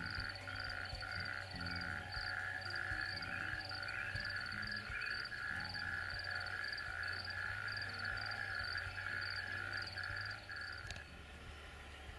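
A steady chorus of rhythmic, pulsing animal calls, repeating a couple of times a second in two clear pitches, typical of frogs calling in spring, with faint birdsong over it. The chorus cuts off about eleven seconds in.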